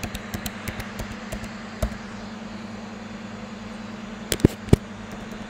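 Light, irregular clicks of keys being typed as a password is entered, over a steady low hum, with three louder clicks near the end.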